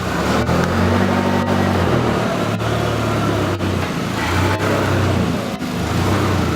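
A car engine running, with a steady low hum that shifts in pitch every second or two.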